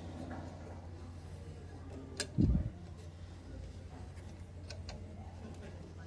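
Steel C-clamp being screwed down on an old brake pad to push the brake caliper piston back. There is a sharp metallic click about two seconds in, followed at once by a short low thud, then a couple of lighter ticks later, over a steady low hum.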